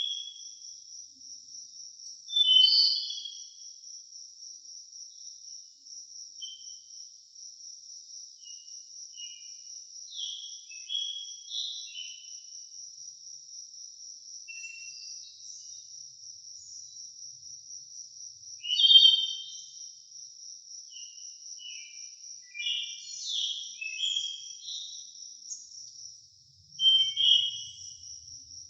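Forest birds calling and singing in short, scattered chirps and phrases over a steady, high, finely pulsing insect trill, likely crickets.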